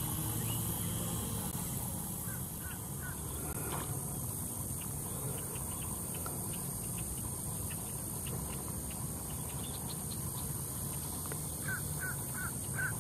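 A bird giving short calls: a few faint notes about two and a half seconds in and a quick series of four near the end, over a steady background hiss.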